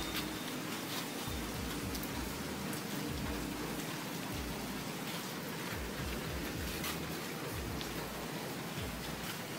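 Steady rain falling, an even hiss with scattered louder drips.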